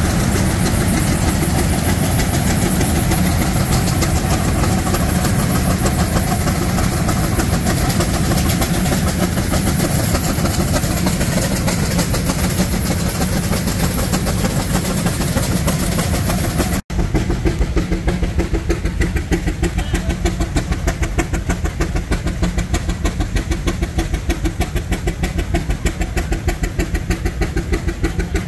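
Old engine running: a dense, continuous mechanical clatter, then after an abrupt cut about two-thirds of the way through, an engine's rapid, even exhaust beats, about five or six a second.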